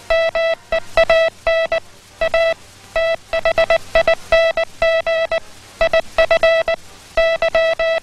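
Morse code sent by hand on a straight telegraph key, heard as a buzzy mid-pitched beep keyed on and off into short dits and longer dahs, with brief gaps between characters.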